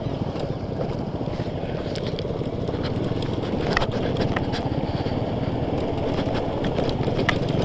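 Yamaha R15 V2.0 motorcycle rolling slowly over a rough cobbled road: its single-cylinder engine runs with a choppy rumble, and scattered clicks and knocks come as the tyres and bodywork jolt over the stones.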